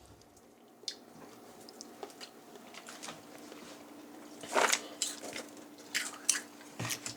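Popcorn being bitten and chewed: scattered crisp crunches, the loudest about halfway through.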